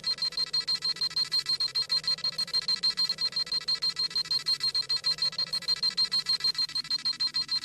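Dragon Ball Z scouter sound effect: a high electronic beeping, pulsing rapidly several times a second, as the scouter scans a power level.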